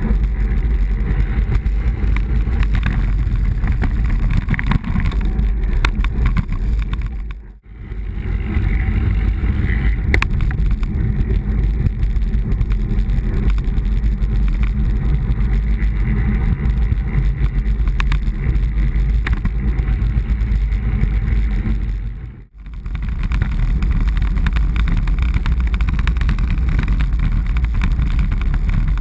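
Wind buffeting a bicycle-mounted action camera's microphone while riding at speed, a steady low rumbling rush with tyre noise from the road beneath. It fades out and back in briefly twice, about 7 and 22 seconds in.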